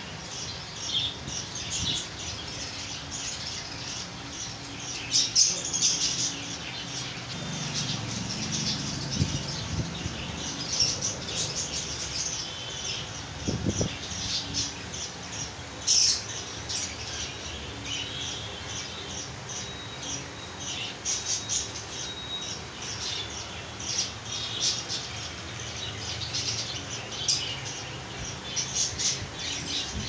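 A flock of budgerigars chattering and chirping: many short, high calls overlap without a break, and a few louder squawks stand out.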